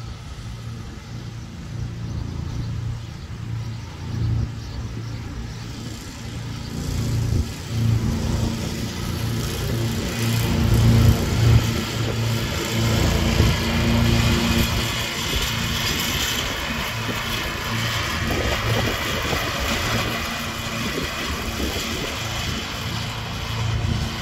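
Kingcat ride-on mower running and mowing with no grass catcher fitted: a steady engine hum. It grows louder and picks up a wide hiss as the mower comes near about ten seconds in, then eases a little as it moves off.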